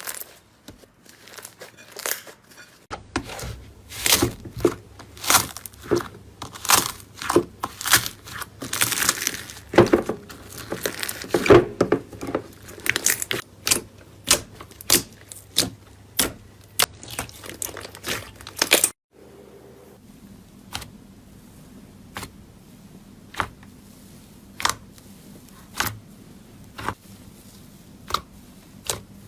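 Slime being pressed and worked by hand, giving many sharp clicks and crackles as air pockets pop. About two-thirds of the way through the sound cuts off abruptly and resumes with sparser, single clicks.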